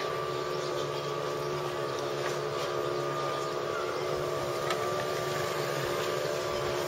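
An engine running steadily at a constant speed: an even drone made of several steady tones, with a few faint ticks over it.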